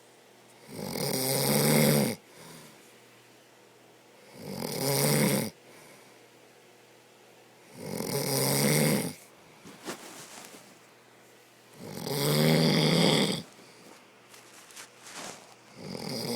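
A man snoring heavily in his sleep: long rattling snores about every four seconds, four of them plus a fifth starting near the end.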